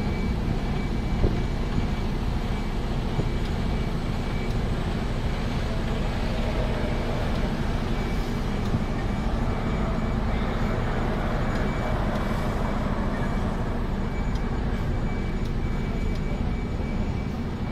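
Truck running steadily: a constant low engine drone mixed with road noise, with a faint steady high whine throughout.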